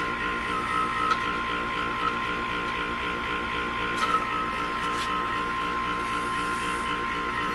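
Small electric motor turning the magnets under a wooden plate, a steady whine with an even hum beneath it, while an aluminium egg spins on the plate. A few light clicks: about a second in, near four seconds and near five seconds.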